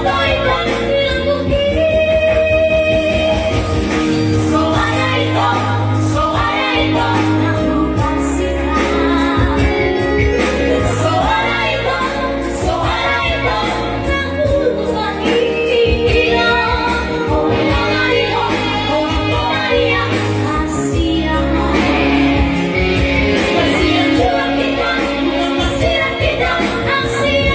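Live band playing a Batak song: a high, melodious singing voice over electronic keyboard and drums.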